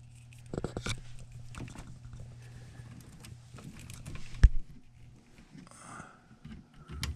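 Handling noises at a furnace control board: scattered clicks and taps of a jumper wire and tools being worked onto the terminals, with one sharp click about four and a half seconds in, over a steady low hum.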